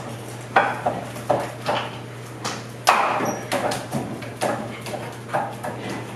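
Hands and forearms striking the wooden arms and trunk of a wooden kung fu training dummy (muk yan jong), a quick irregular run of sharp wooden knocks and clacks, the loudest about three seconds in.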